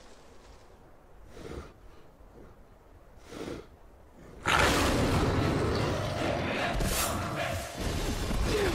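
Film soundtrack: two short swelling whooshes, then about four and a half seconds in a sudden loud burst of action music and effects that carries on.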